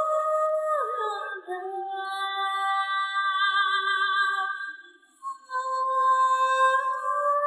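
Background music: a slow melody of long, held, voice-like notes, with a short drop-out about five seconds in.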